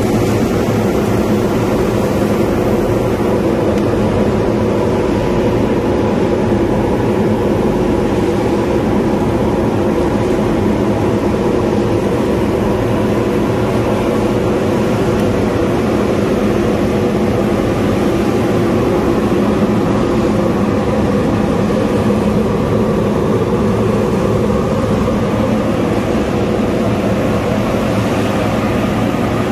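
Steady mechanical drone of a fried-peanut seasoning and conveying line running, with an even low hum throughout.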